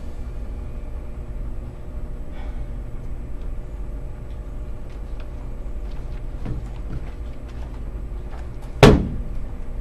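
A steady low rumble with faint scattered clicks, then one loud sharp bang near the end.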